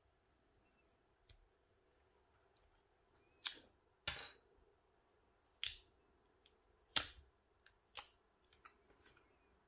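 Handling noise from a lithium-ion cell pack, a screwdriver and small metal parts being picked up and set down on a wooden tabletop: a string of sharp clicks and light knocks, five of them louder, from about three and a half to eight seconds in.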